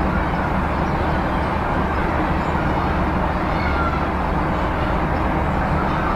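Steady city street ambience: a continuous low rumble of traffic, with a couple of faint brief high tones in the middle.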